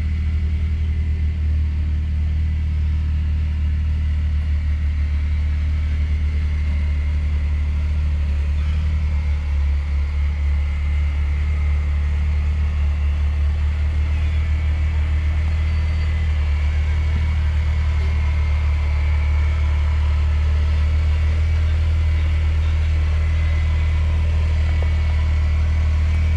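Engine of a lifted Jeep running at low, steady revs as it crawls slowly up a steep rutted off-road climb: a continuous low rumble.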